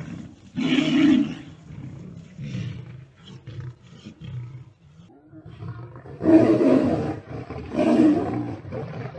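Big cats, lions and a tiger, roaring and snarling as they fight. There is a loud roar about a second in and two more near the end, with quieter rough calls between.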